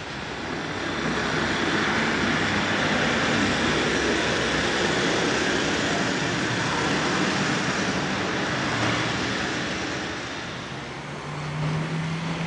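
N-scale model train running along the track, a steady whirring rumble that builds over the first couple of seconds and fades after about nine seconds as it passes. A low steady hum comes in near the end.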